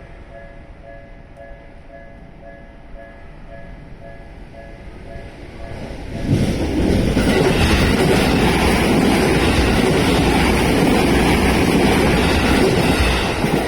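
Japanese level-crossing warning bell ringing in a steady repeating ding. About six seconds in, a Tokyo Metro Namboku Line 9000-series train passes through the crossing: a loud rush of wheels on rail that lasts about seven seconds and eases off near the end.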